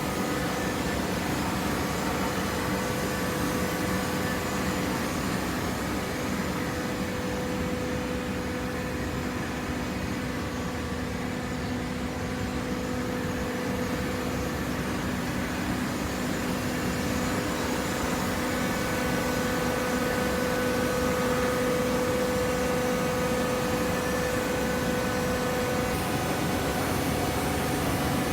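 Hydraulic cardboard baler's motor and pump running, a steady mechanical hum with a held tone, a little louder in the second half.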